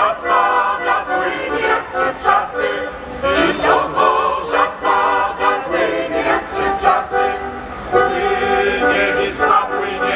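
Mixed choir of women and men singing a song together, with musical accompaniment.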